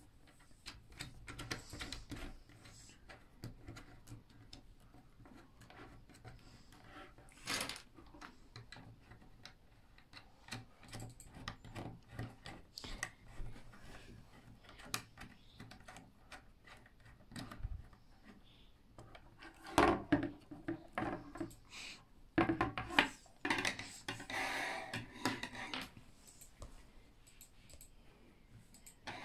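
Meccano Junior plastic parts being handled and screwed together on a wooden tabletop: small clicks, knocks and rubbing of plastic nuts, bolts and strips, with a louder spell of clattering and scraping about two-thirds of the way through.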